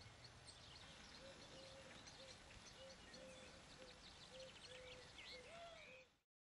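Faint outdoor ambience of birds calling: high chirps and quick trills over a lower, short call repeated every half second or so. It cuts off suddenly near the end.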